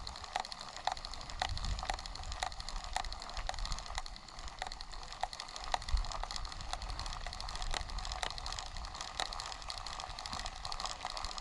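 Zebco spincast fishing reel being cranked to reel in line: a steady whirring with a regular click about three times a second.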